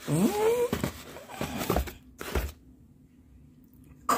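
A short rising vocal sound, then a few short scuffs and rustles of handling noise, the last about two and a half seconds in.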